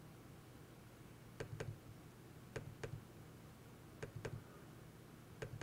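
Faint computer mouse clicks: three double-clicks about a second and a quarter apart, then a single click near the end, over a low steady hum.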